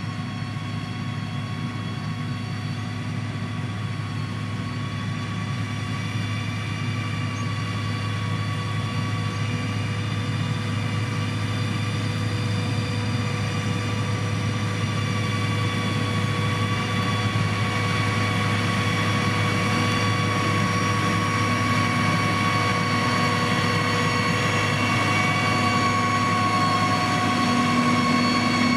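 Diesel engine of heavy road-construction machinery running steadily under load, a low drone with a steady whine over it, growing gradually louder.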